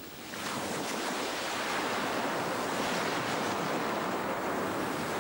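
Surf washing onto a pebble beach: a steady rushing hiss of small breaking waves.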